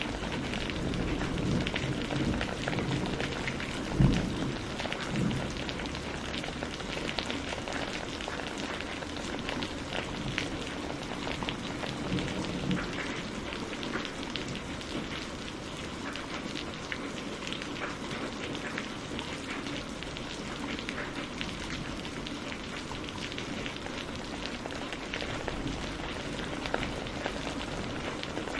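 Steady rain pattering, with thunder rumbling low through the first several seconds and a single sharp crack about four seconds in.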